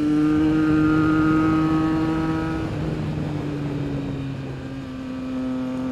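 Triumph Trident 660's inline three-cylinder engine running steadily while riding. Its pitch rises slightly, then drops a little about three seconds in and holds.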